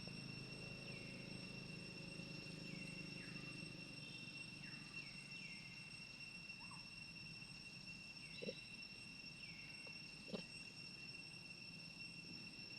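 Insects droning steadily at a high, even pitch, with a string of short calls that fall in pitch, and two brief clicks about two seconds apart near the end.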